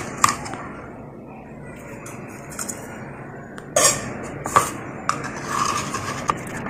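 Aluminium idli plates clinking and knocking as the idli stand is handled: a metallic click near the start, two sharper knocks about four seconds in, and a few lighter taps near the end.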